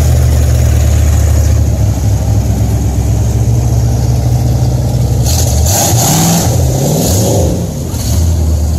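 Mud truck's engine driving through a flooded mud bog: a steady low engine note, then the engine revs up and down several times in the second half, with a rushing noise over the revs.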